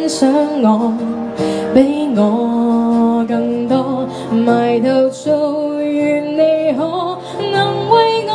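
A woman singing a melody into a microphone with long held notes, accompanied by her own acoustic guitar.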